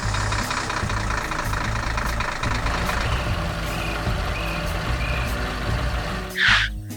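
Heavy truck engine running steadily, with four short faint beeps in the middle like a reversing alarm. A short loud hiss comes near the end.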